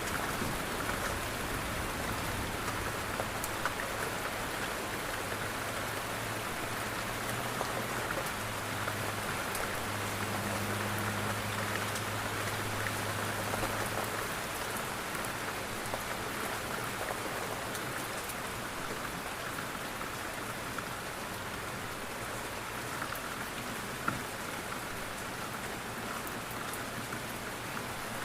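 Steady rain falling on a window, an even hiss of drops. A low hum sits under it and stops about halfway through.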